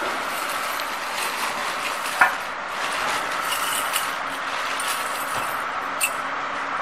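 Steel parts of a chalk-making machine being handled during assembly: one sharp metallic clank with a brief ring about two seconds in, as the steel tray is fitted onto its stand, and a couple of lighter knocks later, over a steady background hiss.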